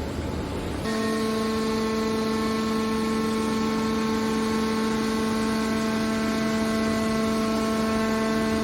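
Metal baler's hydraulic power unit humming steadily, one even pitched tone that sets in abruptly about a second in.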